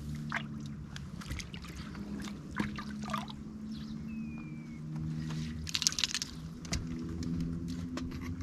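Water trickling and sloshing beside an inflatable pontoon fishing boat as a landing net and the catch are handled at the waterline, with a short splash about six seconds in. A low hum runs underneath.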